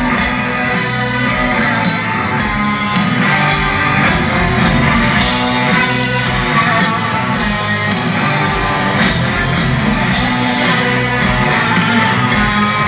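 Live heavy metal band playing loud through a large PA, heard from within the crowd: electric guitar over bass and drums, with a male lead singer singing.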